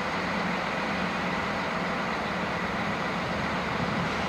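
Two coupled DB class 641 diesel railcars with their engines running steadily, a constant low hum under an even wash of noise.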